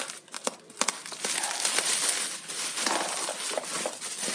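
Plastic wrapping crinkling and rustling as the many layers of packaging are pulled off a parcel, with a few sharp clicks in the first second.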